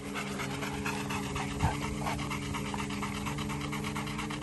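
Rottweilers panting with their tongues out, quick and even.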